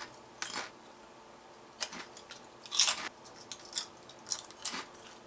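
Crispy potato chips being bitten and chewed: a string of short, sharp crunches, the loudest about three seconds in.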